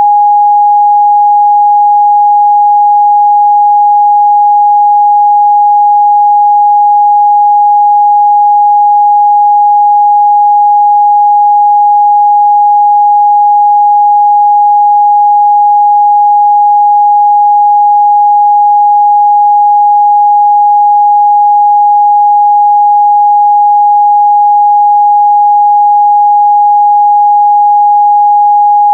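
Pure 826 Hz sine-wave test tone, one steady loud pitch held without change.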